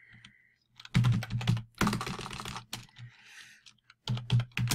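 Typing on a computer keyboard: a quick run of keystrokes about a second in, a pause, then another run near the end.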